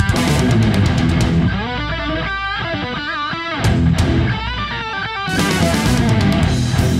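Guitar-driven rock music with a steady beat.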